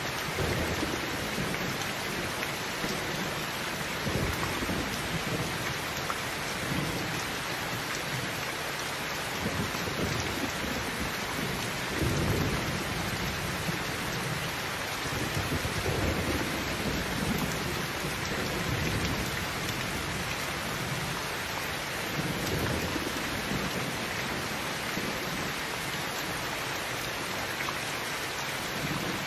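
Heavy rain falling steadily, with low rolling thunder rumbling up and fading away several times, loudest about twelve seconds in.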